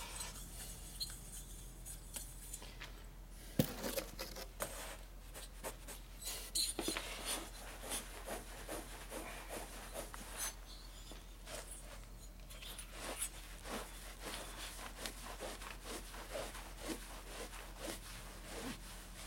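Cloth wiping inside a freshly honed Harley-Davidson Evolution cylinder bore, a long run of short, irregular rubbing strokes, as a last cleaning to see whether any honing grit still comes off. A single knock sounds about three and a half seconds in.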